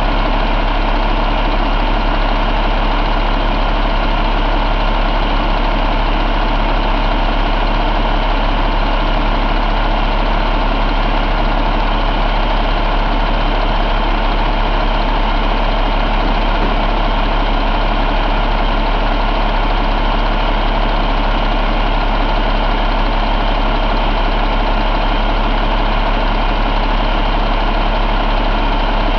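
2012 Cummins ISX15 inline-six diesel engine idling steadily and evenly, with no change in speed.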